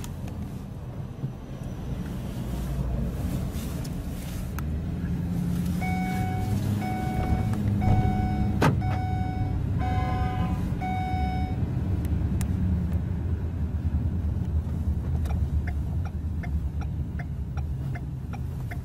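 Engine and road rumble inside a shuttle van driving through city streets. About a third of the way in, a series of about six evenly spaced beeps, roughly one a second, with a sharp click among them.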